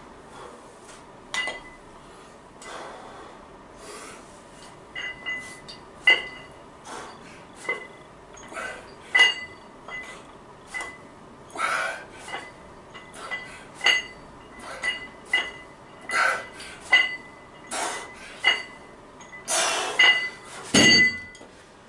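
Plate-loaded dumbbells clinking, their loose iron plates knocking with each lift and lower of a set of side lateral raises, roughly once or twice a second. Louder clanks come near the end as the set finishes.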